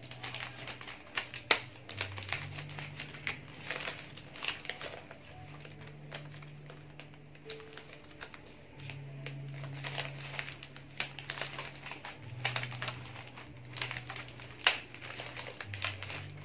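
Florist's wrapping paper crinkling and rustling in irregular bursts as hands fold and tuck it around a bouquet, with a couple of sharper crackles, one about a second and a half in and one near the end.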